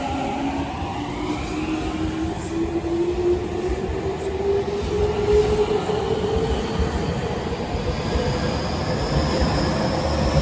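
Tokyu 5050 series electric train accelerating away from a station: its VVVF inverter and traction motors give a whine that rises steadily in pitch as the train gains speed, over the rumble of the wheels on the rails.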